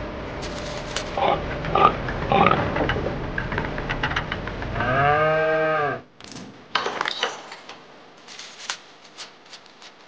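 Clicks and knocks of small toy parts being handled and set down, then a single pitched call about a second long, rising then falling, about five seconds in. After it the sound drops suddenly, leaving lighter scattered ticks and taps.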